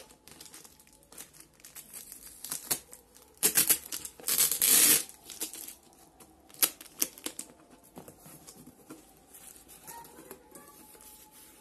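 Packaging being handled and opened: scattered clicks and taps, with loud tearing and crinkling about three and a half seconds in and again from about four to five seconds in.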